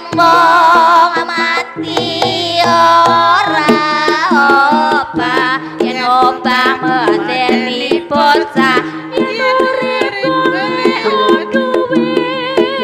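Javanese gamelan music in Ponorogo style (gending Ponorogoan), with kendang hand-drum strokes over held low notes and a wavering, vibrato-laden lead melody.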